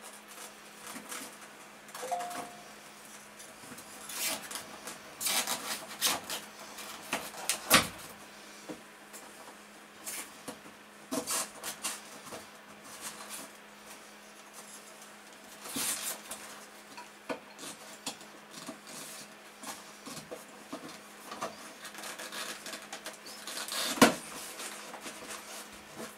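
Hands fitting a small LED ceiling puck light: scattered rustles, scrapes and light plastic clicks of the fixture and its wires being handled, with a sharp click about eight seconds in and another near the end.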